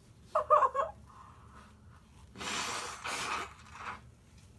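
A woman blowing her nose hard into a tissue, a rushing blow in two pushes lasting about a second, starting about two and a half seconds in; her nose is running from the heat of the hot wings. About half a second in she gives a brief voiced sound, the loudest moment.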